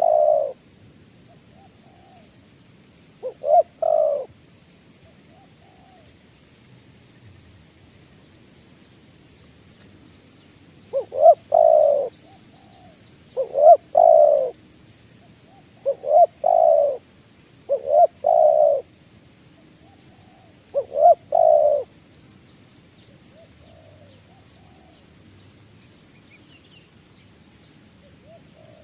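A bird cooing: short phrases of two or three low hooting notes, seven phrases with irregular pauses between them and a long pause near the end. Faint high chirps of other birds are heard in the background.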